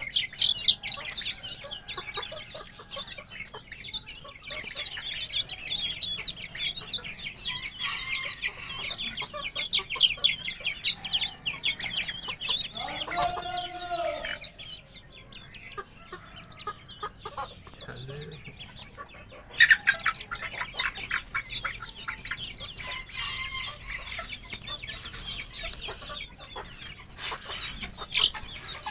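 A cage of young chickens peeping and cheeping continuously in short, high calls. About halfway through there is one longer, drawn-out call, and about two-thirds of the way through there is a sudden louder flurry.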